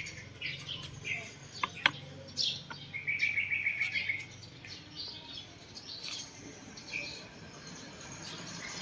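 Small birds chirping in short scattered calls, with one rapid trill about a second long a few seconds in. A couple of sharp clicks come near the start.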